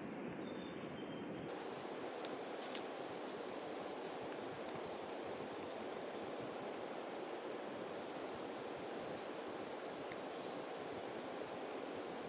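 Steady rushing of water from the river and falling rain, with a faint high chirping repeating at an even pace over it.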